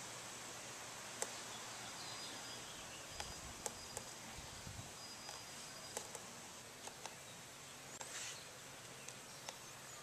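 Handling of a sheet of woven carbon fiber cloth: a few scattered light ticks and rustles over a steady background hiss.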